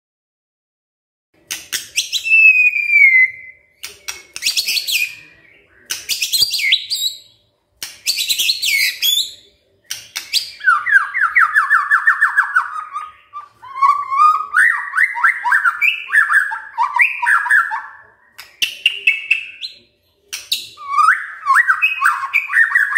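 White-rumped shama singing loudly, starting about a second and a half in: short varied whistled phrases separated by brief pauses, turning in the second half into long runs of rapid repeated chattering notes.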